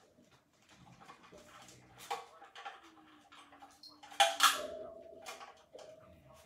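Puppies chewing treats: scattered small clicks and crunches, with a louder burst about four seconds in.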